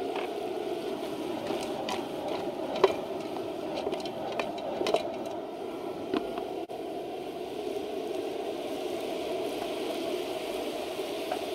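Propane burner running steadily under a steaming pot of crab boil, with a few scattered crackles and clicks in the first half.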